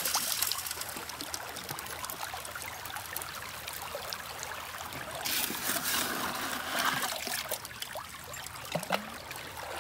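Creek water running and trickling through a metal sluice box while a scoop of classified gravel is tipped into its flare, a little louder about five to seven seconds in.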